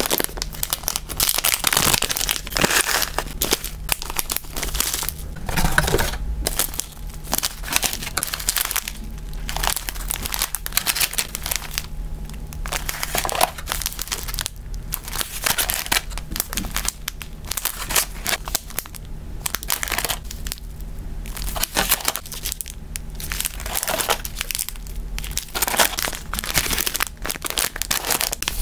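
Plastic and foil packaging crinkling and rustling as it is handled: a foil zip bag, small clear zip bags of dried hamster food, and a paper bag being packed into a cardboard box. The crackle comes in quick, irregular bursts of handling with no steady rhythm.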